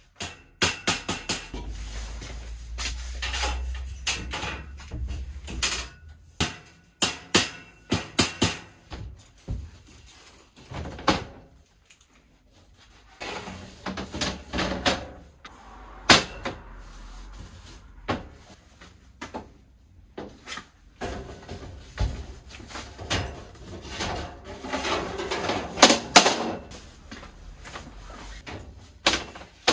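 Shelving being assembled: a string of sharp knocks, clicks and clatter as parts are fitted together and set down, with a few short pauses.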